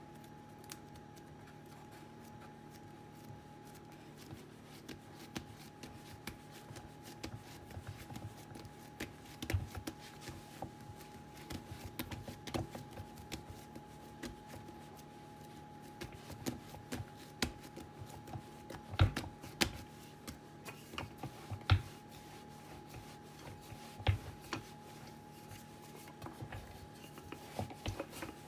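Hands pinching, folding and pressing stuffed bread dough on a wooden board: soft rubbing and patting, with scattered dull knocks on the board that grow more frequent and louder in the second half. A faint steady hum runs underneath.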